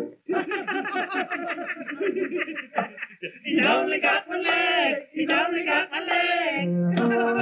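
Several cartoon voices laughing together in chorus, in bursts of mocking laughter.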